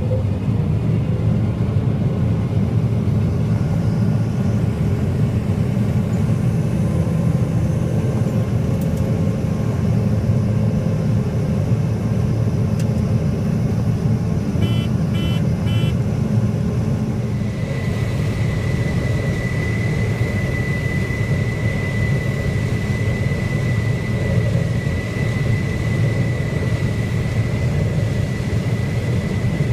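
Combine harvester running steadily while shelling corn: a loud, even low rumble. A few short high beeps come a bit past the middle, and soon after a steady high whine joins in.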